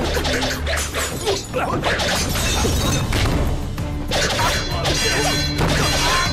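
Film fight sound effects: a rapid run of punches, blows and crashes, with swishes of movement, over dramatic background music.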